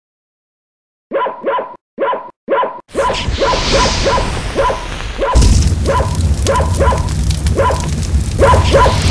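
Cartoon sound effects: four short dog-like barks about a second in, then more barks over a rising rush of fire noise as the fields catch. A deep rumble joins the fire about five seconds in.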